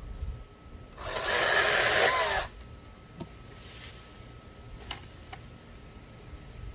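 Greenworks GS110 battery-powered top-handle chainsaw run in one burst of about a second and a half, cutting into a branch, its motor pitch bending under load. A few light clicks follow.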